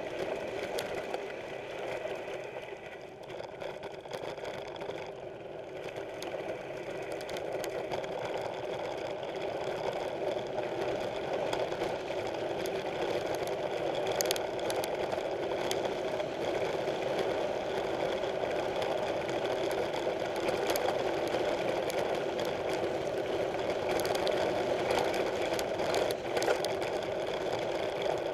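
Mountain bike riding on a dirt trail: a steady mechanical whirring buzz from the bike that dips a few seconds in and then holds. A few short rattles and knocks come through from bumps in the trail.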